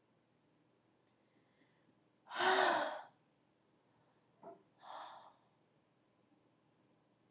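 A person's loud, voiced sigh about two seconds in, followed a couple of seconds later by two shorter breath sounds.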